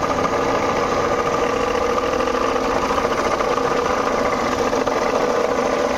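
Jeep Compass 2.0-litre Multijet diesel engine running steadily with a loud rumbling clatter from its alternator pulley. The alternator's one-way pulley has seized, locking in both directions instead of freewheeling one way.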